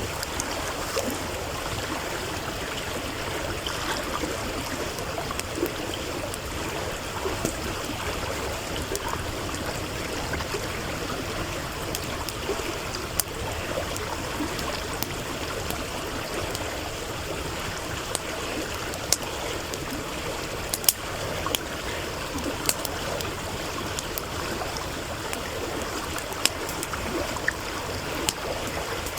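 A stream running steadily, with scattered sharp crackles and pops from a burning wood campfire. A few louder pops come in the second half.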